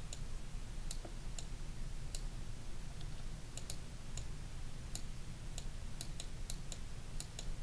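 Irregular clicks of a computer mouse, about fifteen of them, unevenly spaced and bunching together near the end, over a low steady hum.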